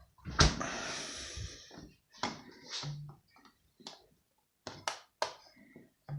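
A sharp knock followed by about a second of rushing noise, then a series of short clicks and knocks: a Hisense fridge freezer's doors and plastic fittings being handled.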